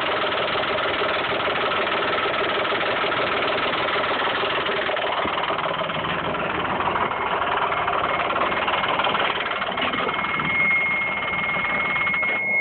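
Dodge Stealth's V6 engine idling with the timing belt cover off, with a loud clacking that sounds like lifter noise or a spun bearing but which the owner suspects comes from a loose timing belt and its tensioner. About ten seconds in, a steady high-pitched beep starts and keeps going.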